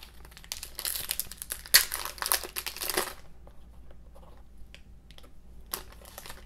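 Foil wrapper of a 2019 Donruss football card pack crinkling and tearing as it is ripped open, for about two and a half seconds. Then come a few light rustles and ticks as the cards are handled.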